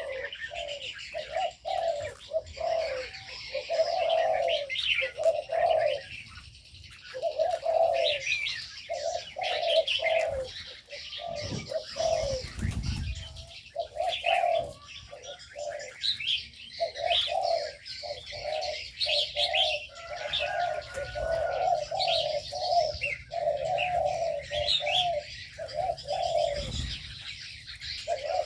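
Aviary doves, likely spotted doves, cooing over and over, with small birds chirping and twittering higher up. A brief low rumble comes about halfway through and again near the end.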